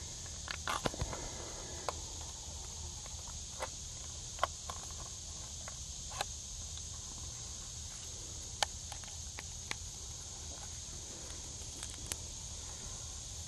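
Steady high-pitched insect chorus, with scattered short clicks and taps throughout.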